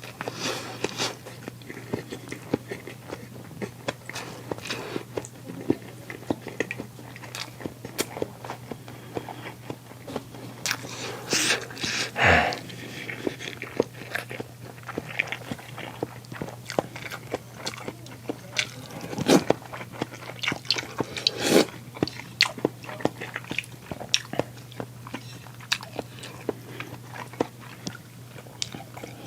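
Close-up eating sounds: a person biting, chewing and crunching food, with many small crackles and clicks and a few louder bites spread through. A faint steady low hum runs underneath.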